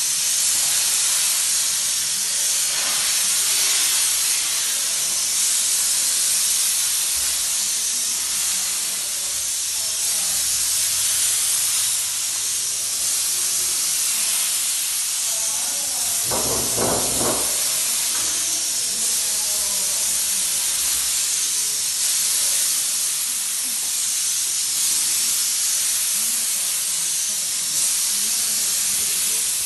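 Biemmedue steam sanitizer's hand lance blowing a continuous jet of hot steam, a steady high hiss. A short pitched sound cuts in briefly about halfway through.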